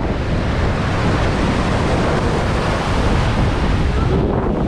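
Rough ocean surf washing and breaking on the beach, with wind buffeting the microphone in a heavy low rumble.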